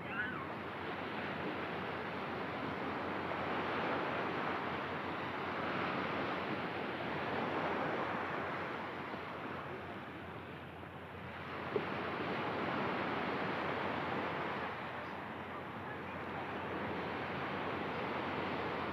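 Ocean surf washing onto a beach, a steady rushing that swells and fades every few seconds as the waves come in. There is a brief sharp tick just after the start and another about twelve seconds in.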